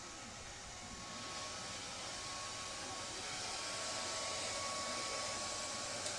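Hair dryer running steadily: an even rushing hiss with a faint thin whine, growing a little louder after the first second or so, and a small click near the end.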